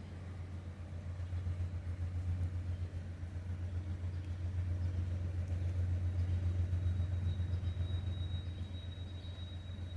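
A steady low rumble that grows louder over the first few seconds, with a faint high whine coming in about seven seconds in.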